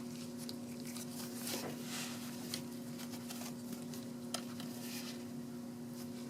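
Low steady hum with a few faint, scattered clicks and light rustles.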